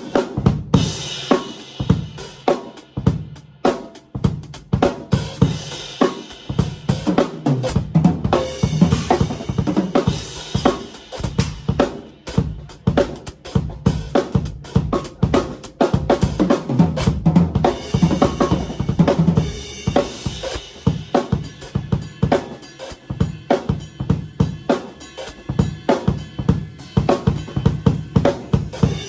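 Acoustic TAMA drum kit with Meinl cymbals played with sticks: a continuous groove of kick drum, snare and hi-hat with cymbal crashes and rides ringing over it.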